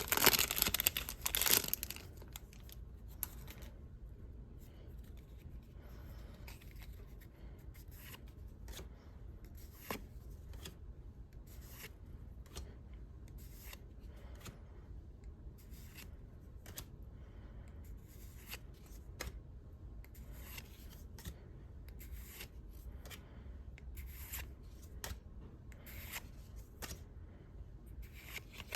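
Pokémon trading-card packaging torn and crinkled open for the first couple of seconds, then many quiet, scattered clicks and flicks as cards are handled and flipped through.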